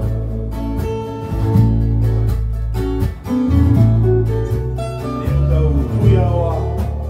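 Acoustic guitar strummed in a steady rhythm, with deep bass notes changing underneath, in an instrumental passage of a Fijian song.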